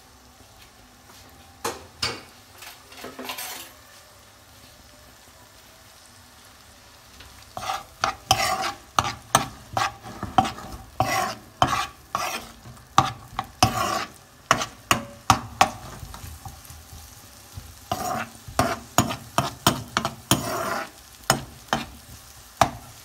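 Chopped onions softening in butter in a nonstick frying pan: a steady sizzle under the scrape of a metal spoon stirring them. There are a few strokes in the first seconds, then a pause with only the sizzle. Brisk stirring follows at about two strokes a second, with a short break about two-thirds of the way in.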